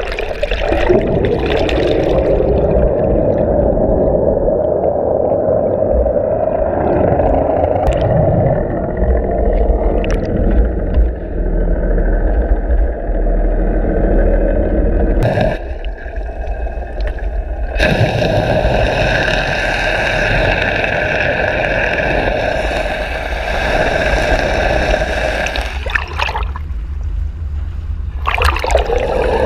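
Boat engine and propeller drone heard underwater, with water rushing past the camera housing. It drops away suddenly for a couple of seconds about halfway and thins out near the end.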